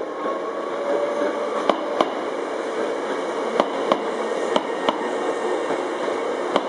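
Hankyu electric train rolling slowly past a platform: steady running noise with a faint motor whine. From about two seconds in, the wheels clack over a rail joint in quick pairs, one pair every second or so, as each bogie's two axles cross it.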